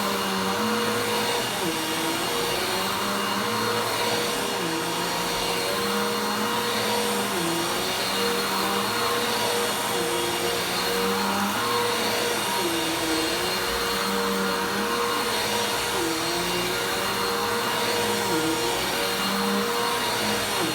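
Vacuum cleaner running steadily, its motor pitch dipping briefly about every two seconds.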